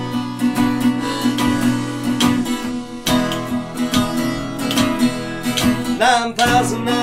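Background music: an acoustic guitar strums an instrumental break in a song, and the singing comes back near the end.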